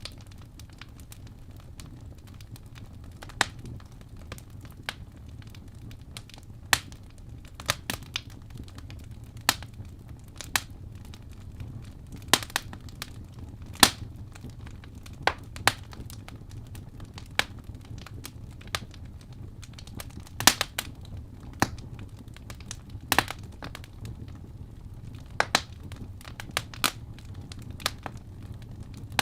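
Wood fire burning in a fireplace: irregular sharp pops and crackles from the burning logs, one or two a second, over a steady low rumble of the flames.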